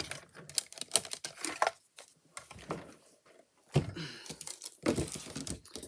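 Hand-cranked mini die-cutting and embossing machine: a run of quick plastic clicks as the cutting plates pass through the rollers. About four and five seconds in come a few louder knocks as the plates and die are handled.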